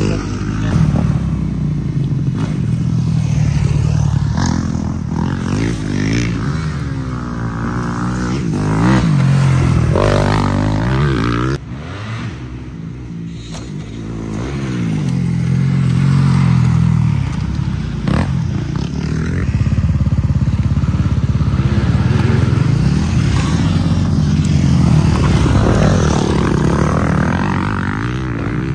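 Dirt bike engines revving as the bikes ride around and past, the pitch climbing and dropping over and over. There is a sudden drop in loudness about a third of the way in.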